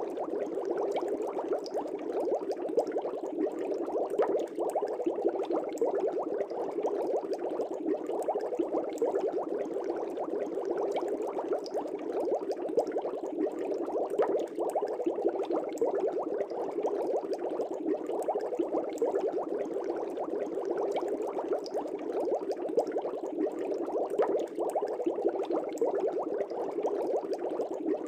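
Air bubbles rising and bubbling steadily in an aquarium, a dense continuous stream of small pops and gurgles.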